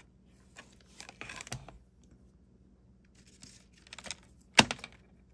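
Handling noise of a wireless lavalier microphone kit's cables and small plastic units being moved on a table: scattered light taps and rustles, then one sharp knock about four and a half seconds in, the loudest sound.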